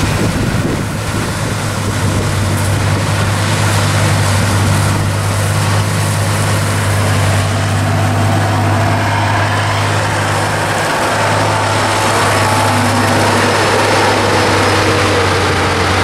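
Heavy diesel engines of a combine harvester and a grain truck running steadily, with a strong low hum, and wind on the microphone.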